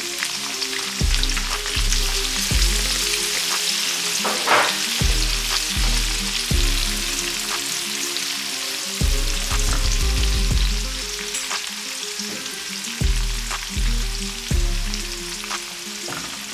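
Chopped onions sizzling in hot frying oil in a pan, with occasional light clicks, over background music with low notes changing about once a second.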